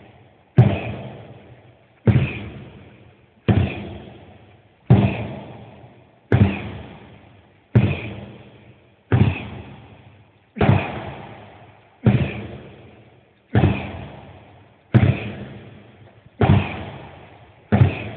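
Sledgehammer striking a tractor tire in a steady rhythm, about one blow every second and a half, thirteen in all. Each blow is a heavy thud that echoes away in a large hall.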